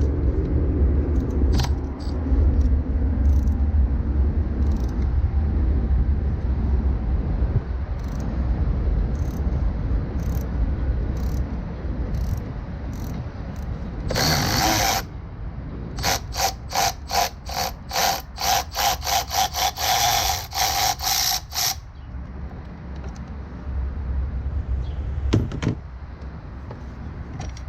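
Cordless electric ratchet spinning out an engine-mount bolt: a short burst about halfway through, then several seconds of fast, stuttering pulses. A steady low rumble lies underneath throughout.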